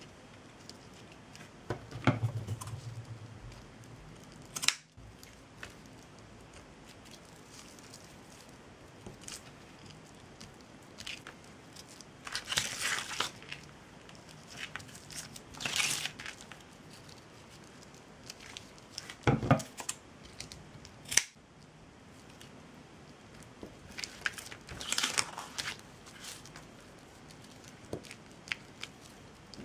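Scattered handling sounds from working glued jute twine by hand: brief rustles and crinkles a few seconds apart, with a few sharp clicks, over quiet room tone.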